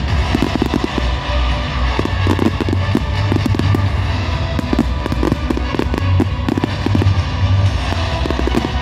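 Fireworks barrage: many aerial shells bursting and crackling in quick succession, with music playing loudly underneath.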